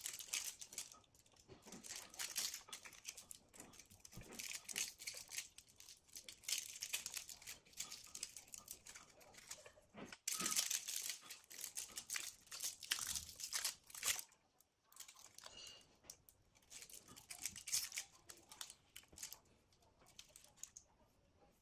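Thin wires and stripped plastic cable being handled and threaded by hand: a faint, irregular crinkling and rustling made of many small crackles that come in clusters.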